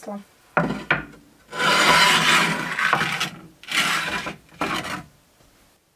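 Scraping strokes of a baking pan being slid across the brick hearth of a Russian oven: a short scrape, a long one of about two seconds, then two shorter ones.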